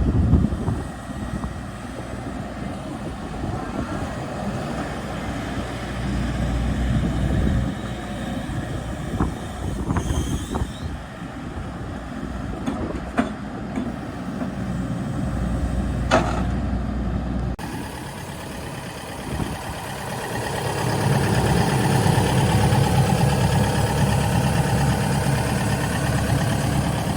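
John Deere 135G hydraulic excavator's diesel engine running, with a few sharp knocks. Toward the end the engine grows louder and busier, as under working load.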